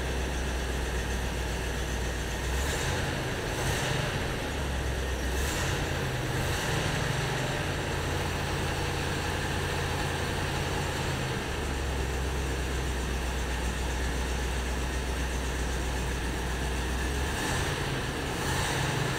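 1954 Buick V8 idling steadily, freshly started after sitting for days and fed from a coffee can of gas at the carburetor in place of its fuel tank.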